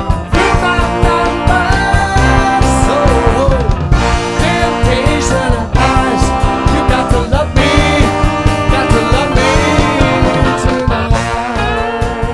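Rock band music with a steady drum beat, bass and guitar, and a melody line over it, played without sung words.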